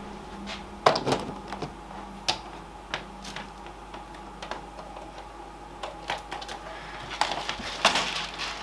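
Hands handling cables and plugging connectors into a desktop PC: scattered clicks and knocks, the loudest about a second in and near the end.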